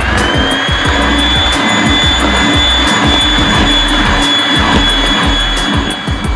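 Electric hand mixer speeding up, its motor whine rising in pitch, then running steadily as the beaters whip egg whites and cornstarch into meringue; it cuts off near the end. Background music with a steady beat plays underneath.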